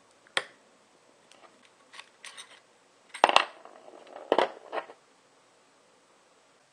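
Short cut lengths of 1/2-inch type L hard copper pipe and a small tube cutter being handled on a table: a string of sharp metallic clinks and taps. The loudest comes a little over three seconds in.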